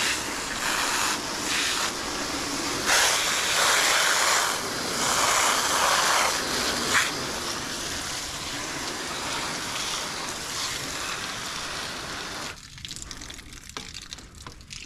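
Water spraying hard from a hose-fed spray wand onto a fish and a plastic cleaning table, a steady hiss that surges louder now and then and stops near the end.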